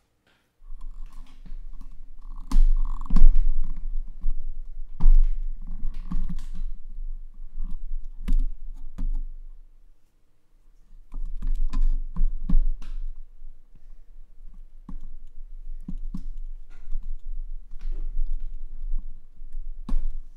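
Rapid, irregular clicks and taps with dull thuds carried through the desk, in two spells broken by a short pause about ten seconds in.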